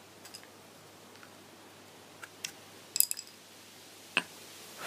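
A few light clicks and taps of small hard objects being handled, with a quick cluster of them about three seconds in. No drill is running.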